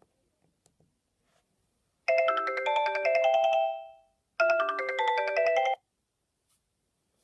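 Sony Ericsson W395 mobile phone playing a built-in polyphonic ringtone through its loudspeaker, a bright chiming melody. The phrase plays and rings out, starts again about half a second later, and cuts off suddenly. Faint key clicks come before it.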